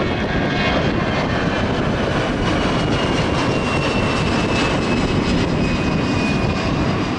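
Jet engines of a climbing Airbus A320-family airliner running overhead: a steady, loud rumble with a faint whine that slowly falls in pitch as the aircraft passes and climbs away.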